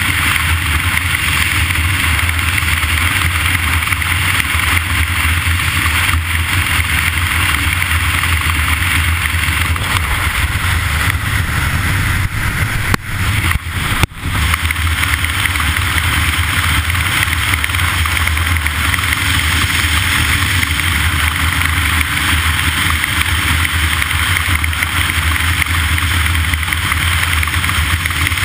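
Steady vehicle noise, an engine running evenly, with two brief drops in level about 13 and 14 seconds in.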